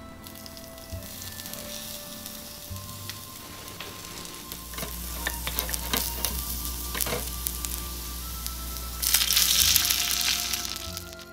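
Chopped onion sizzling in hot oil in a miniature copper frying pan, with a wooden spatula clicking and scraping against the pan around the middle. About nine seconds in, beef stock is poured into the hot pan and the sizzle jumps to a louder hiss.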